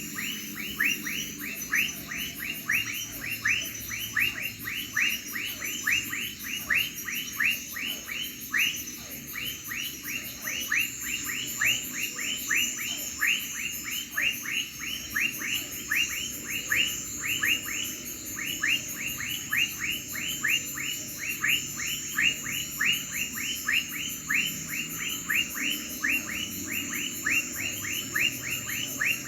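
A chorus of calling crickets: a fast, high pulsing trill and a steady high tone, with a run of short falling chirps about three a second that never lets up.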